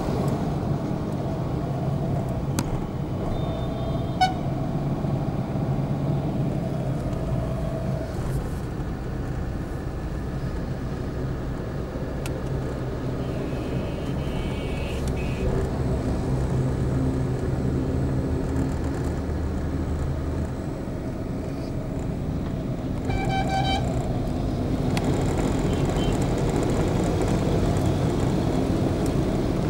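Traffic noise from inside a moving car: a steady hum of engine and tyres on the road, with a short horn toot about four seconds in and a vehicle horn honking for about a second late on.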